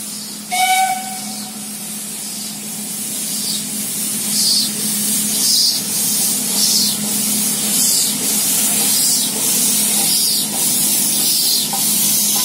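Nilgiri Mountain Railway steam locomotive gives a short whistle blast about half a second in. Then it moves off slowly with a steady hiss of escaping steam, and the exhaust chuffs about once a second from a few seconds in.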